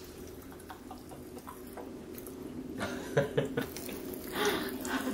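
Pop Rocks candy crackling in a toddler's mouth: scattered tiny pops that grow thicker and louder about three seconds in, with the toddler giggling near the end.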